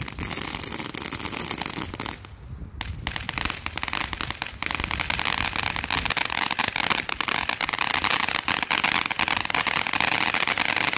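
Ground fountain firework spraying sparks with rapid, dense crackling. It thins briefly about two seconds in, then crackles thickly again.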